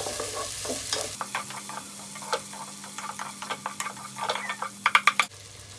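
Chopped onion and tomato sizzling in hot sesame oil as they are sautéed soft, stirred with a wooden spatula that scrapes and taps against the nonstick pot, with a quick run of louder taps near the end.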